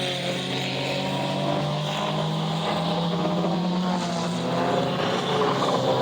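Several race car engines running together, their pitches drifting slowly up and down.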